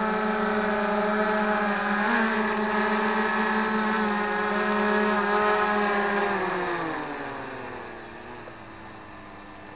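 Autel X-Star Premium quadcopter's propellers and motors whirring steadily as it descends. About six seconds in, as it touches down on the landing pad, the pitch falls and the sound drops to a lower, quieter hum.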